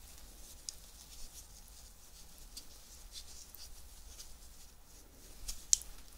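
Close-miked crackling of crisp, dry sweets: scattered small crunches, with one sharper crack near the end.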